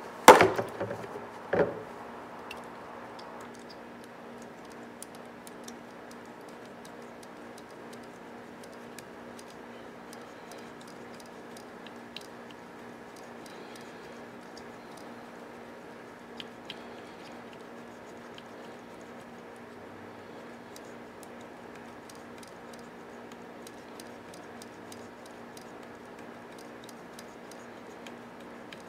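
A few sharp knocks and clicks of small mechanism parts being handled in the first two seconds, then only faint, scattered ticks over a steady low hum.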